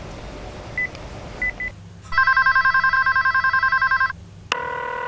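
Electronic telephone ringer sounding a fast warbling trill for about two seconds, after a few short high beeps over a background hiss. A steady held tone starts near the end.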